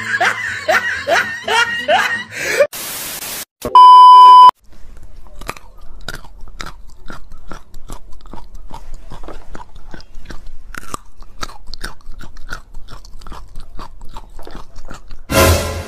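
Raw bitter gourd being bitten and chewed: a long run of crisp crunches in quick succession. Before the crunching there is a steady beep about four seconds in.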